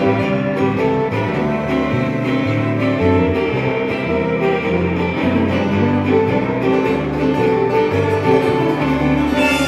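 Live country band playing: a fiddle carrying the melody over strummed acoustic guitar and electric guitar, with a low line shifting under it.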